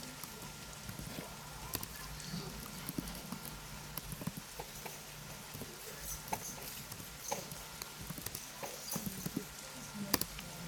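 Computer keyboard typing: irregular key clicks and taps at an uneven pace, over a faint low steady hum.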